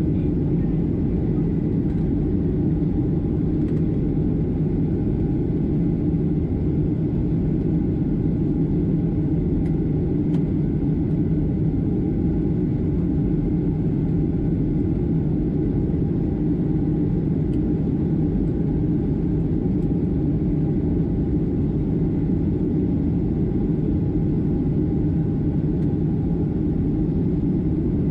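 Steady cabin drone of a Boeing 757-200 climbing, heard from inside the cabin: engine and airflow noise as a constant low rumble with a faint steady hum.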